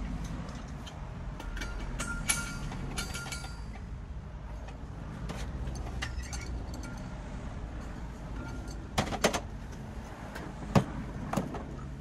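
Handling noises from a nitrogen cylinder and refrigeration gauge hoses being set up: clicks and short rasps of metal fittings and hose, with a few sharp knocks near the end, over a steady low rumble.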